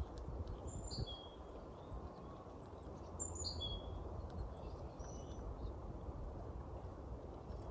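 A small songbird calling a short high phrase that falls in steps, about a second in and again about three seconds in, with a fainter single note later, over a steady low outdoor background noise.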